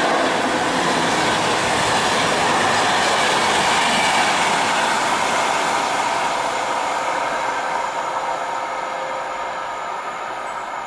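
Passenger coaches of an express train hauled by an EU07 electric locomotive rolling past on the track, then running away into the distance. The rolling noise is steady at first and fades slowly over the second half.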